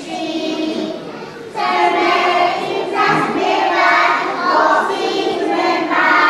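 A group of young children singing a song together, with a brief break between phrases about a second and a half in.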